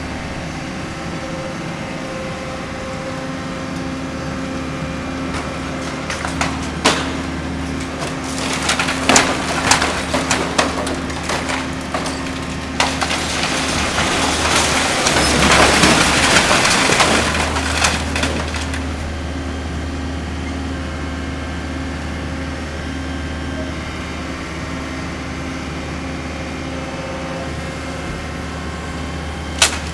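Tracked demolition excavator's engine running steadily while its bucket tears into a building. From about six seconds in come sharp cracks and clatters of splintering wood, building to a long crash of falling debris around the middle, with one more sharp crack near the end.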